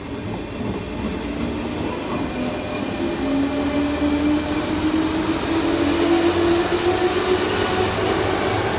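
Green JR West 201 series electric commuter train pulling away along the platform, its wheels running on the rails. A motor whine rises steadily in pitch from about three seconds in as the train gathers speed.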